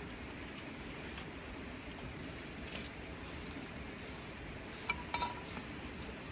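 A few light clicks and then a short clink about five seconds in, like small camp cookware and utensils being handled, over a steady low hiss.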